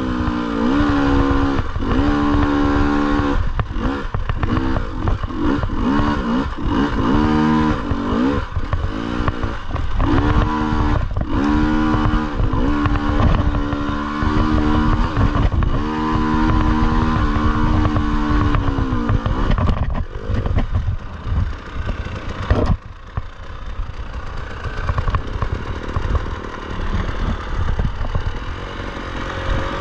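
KTM dirt bike engine revving up and down again and again as it is ridden over a rutted trail. About three-quarters of the way through there is a sharp knock, and after it the engine note fades into a quieter, rougher clatter.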